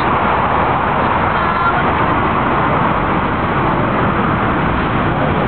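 B92 Stock Docklands Light Railway train departing, a steady, even running noise.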